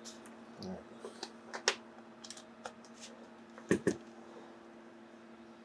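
Hands handling a Dell Latitude laptop's plastic case: a soft thump under a second in, scattered light clicks and taps, and two sharper clicks close together about four seconds in. A faint steady hum runs underneath.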